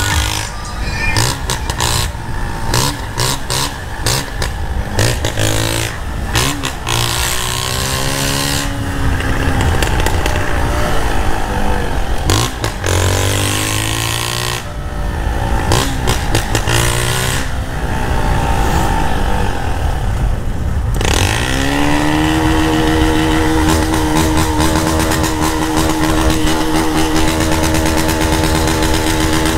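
Motorcycle engine heard from the rider's seat while riding, its pitch rising and falling again and again as the throttle is worked through the gears. About two-thirds of the way in it climbs and holds a steady high rev.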